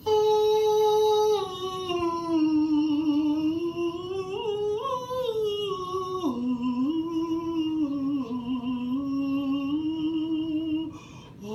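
A voice singing a wordless tune: one long, nearly unbroken line of held notes that slide up and down, dropping lower about six seconds in and stopping just before the end.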